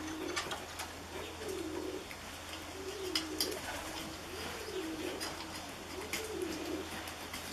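A pigeon cooing over and over, a rolling coo about every second and a half. Light clicks and taps come from hands working at the orchid pot and its wire.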